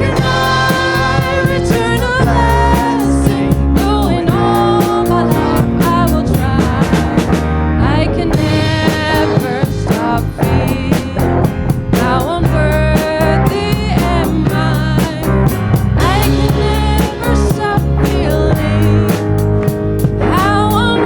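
Live church worship band playing an upbeat song, with drum kit, guitar and bass under a singing voice.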